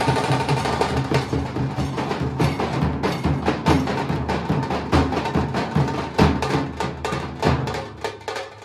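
A group of Nashik dhol drums played together with sticks in a fast, dense rhythm, deep booms under sharp stick strokes. The drumming thins out and gets quieter near the end.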